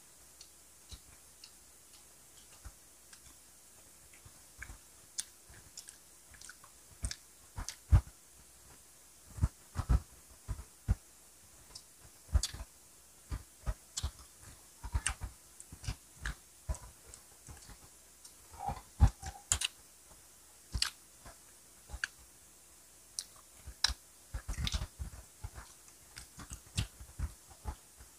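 Close-miked chewing and biting of grilled skewered street food by several people: irregular wet mouth clicks and smacks, sparse for the first few seconds and then busier.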